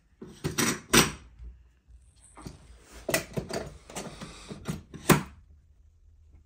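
Metal guide-rail slot clamp being fed through the rail's slot and tightened against a plywood jig: a series of metal clicks and knocks with some scraping, the loudest knocks about a second in and near the end.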